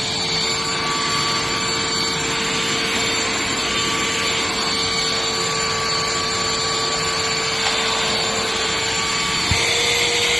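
Shark CH701 Cyclone Pet handheld vacuum running steadily: an even motor whine over a rush of air, with a short click about nine and a half seconds in.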